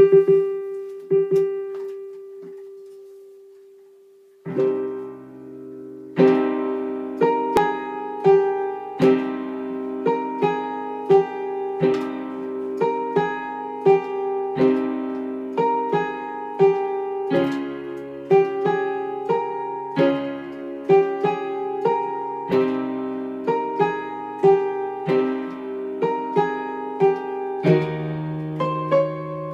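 Piano being played: a few single notes ringing out and fading, then from about four seconds in a steady, evenly paced pattern of chords and melody notes, roughly two strikes a second.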